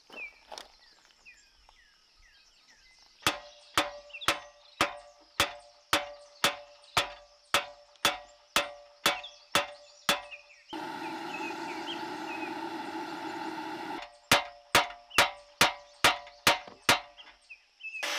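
A hammer striking rusted, stuck steel pins on a tractor front-loader cylinder, about two blows a second, each ringing metallically. A steady rushing noise cuts in for about three seconds midway, then comes a quicker run of blows. Faint bird chirps in the first few seconds.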